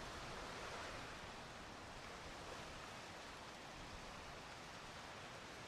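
Faint, steady beach ambience: an even hiss with no distinct events.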